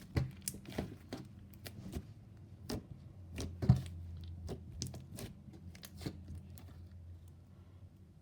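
Hands squishing and poking butter slime, giving irregular small clicks and pops, one louder pop about three and a half seconds in.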